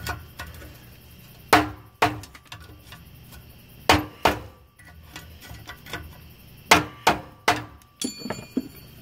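Screwdriver knocking against a welded steel bracket to chip off welding slag: sharp metallic knocks, mostly in twos and threes, then a quick flurry of taps with a ringing tone near the end.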